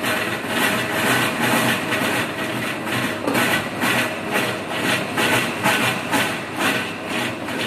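Electric vegetable dicing machine running steadily, its rotary blades cutting whole carrots into small cubes with a rapid, repeated chopping sound over the motor's hum.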